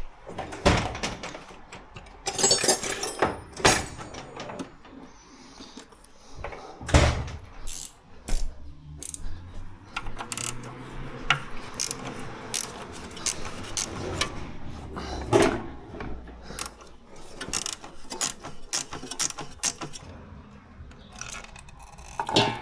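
Irregular metallic clicks, clanks and knocks of hand tools and gearbox parts being handled during work on the 0B5 gearbox's filter cartridge, with a faint low hum in the middle stretch.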